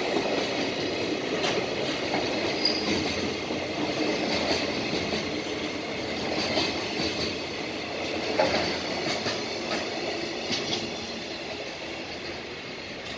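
Freight train of container flatcars rolling past, the wheels clicking and knocking over rail joints, with a brief high wheel squeal early on. The sound eases off near the end as the last wagons pass.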